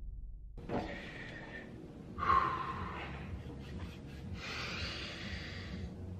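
A man breathing heavily in three long breaths. The second begins with a sharp gasp.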